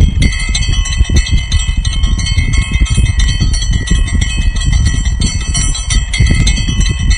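High, steady bell-like ringing of several tones sounding together, over low rumbling noise with scattered clicks.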